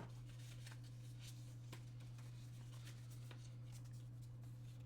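Faint rustling and scattered light clicks of hands handling parts and packaging, over a steady low hum.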